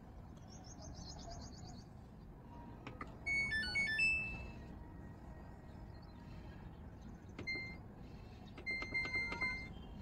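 Samsung top-load washing machine's touch control panel beeping: a short multi-note electronic chime a few seconds in, then a single beep and a quick run of beeps near the end as the panel's buttons are pressed.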